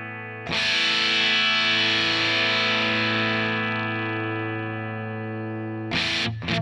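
Electric guitar played through a home-built overdrive pedal into a Hiwatt-style amp model, its tone set with boosted mids and bass, giving a distorted sound. A chord is struck about half a second in and left to ring, slowly fading, for about five seconds. A few quick strums follow near the end.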